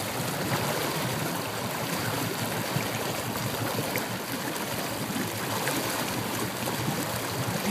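Steady rush of churning wake water behind a motorboat under way, with the boat's motor running underneath.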